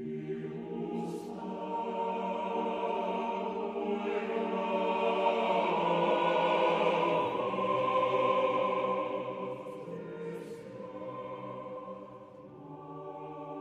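Choral background music: voices hold long sustained chords that swell to their loudest in the middle and ease off near the end.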